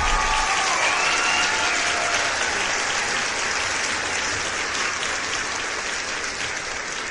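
Crowd applause, a dense even clatter of clapping that slowly fades out.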